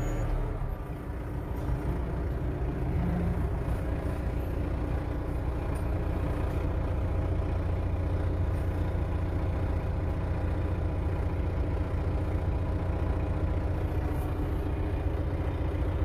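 A vehicle engine running steadily at an even speed, a low constant drone with no revving.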